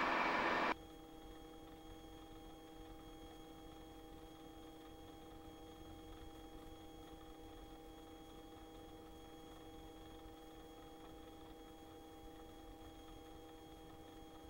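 Robinson R22 helicopter intercom audio: a hiss of cabin noise through the open line cuts off suddenly under a second in. What follows is a faint steady hum with several steady tones.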